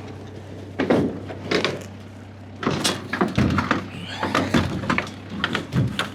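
A broken shed door being moved, banging and rattling in a string of uneven knocks and thuds, with a steady low engine hum underneath.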